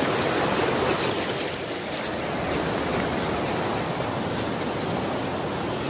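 Steady rush of fast-flowing water.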